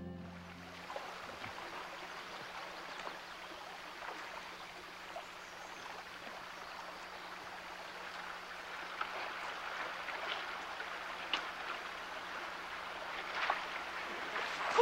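Shallow creek water running over rocks, a steady rushing babble, with a few brief sharp splashes in the second half.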